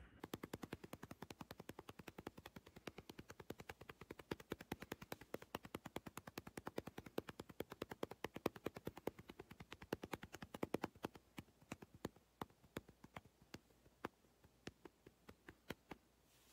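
Faint, rapid, even pats of hands on a cat's fur, about six a second, slowing to a few a second over the last few seconds.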